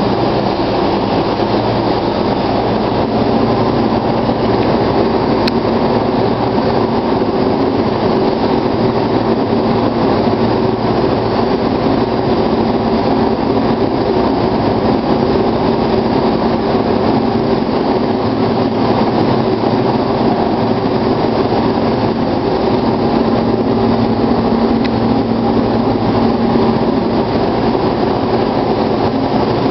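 Gravity-feed paint spray gun hissing steadily with compressed air as it sprays clear coat onto a car's body, over a steady machine hum.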